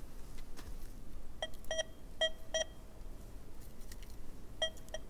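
Metal detector sweeping over a deeply buried target and giving short beeps: four in quick succession about a second and a half in, then two more near the end. The response is patchy, not a solid signal at this depth.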